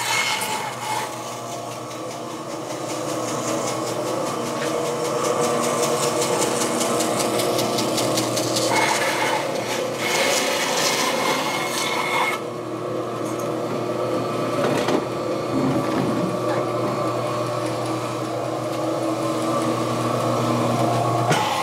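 Large vertical bandsaw running with a steady motor hum while its blade cuts through a thick round of log, sawing it in half.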